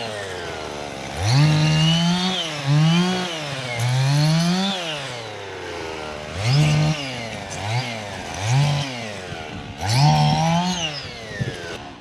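Husqvarna 55 two-stroke chainsaw cutting a small white pine, revved up and down in about seven bursts between idle, then shut off near the end.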